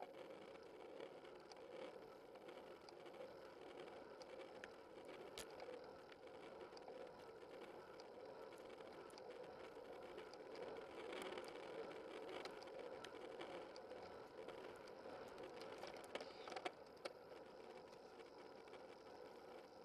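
Faint, steady rolling and rushing noise of a bicycle being ridden on a paved road, picked up from low on the bike, with a few faint clicks and knocks.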